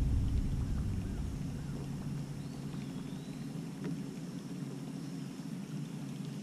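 Quiet open-water ambience around a kayak: a low rumble, strongest in the first two seconds and then easing, with a faint high whistle about two and a half seconds in.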